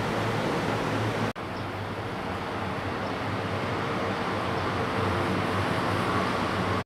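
Steady vehicle noise with a low hum, broken by a brief cut about a second in.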